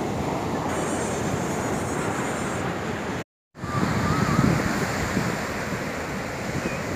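Ocean surf breaking and washing up a sandy beach, with wind buffeting the microphone. The sound cuts out completely for a moment about halfway through.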